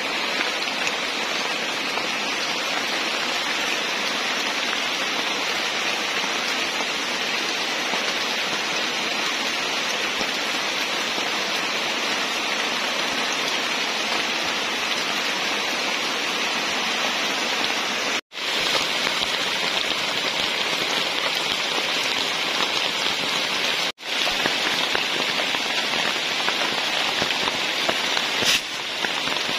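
Steady rain falling on tropical forest foliage, an even dense hiss. It drops out for an instant twice, about 18 and 24 seconds in.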